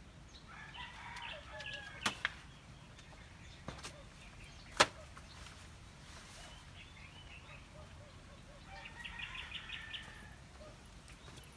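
Chickens calling twice, once about a second in and again near the end, over a faint background. A few sharp clicks break in between, the loudest about halfway through.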